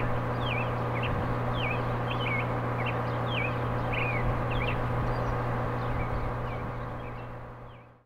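A songbird calling in short, sharp chirps, about two a second, over a steady low hum; everything fades out near the end.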